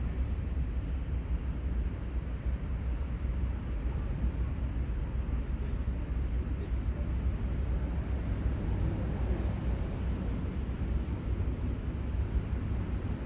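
Steady low rumble of seaside outdoor ambience, even throughout, with faint high chirps repeating about every second and a half.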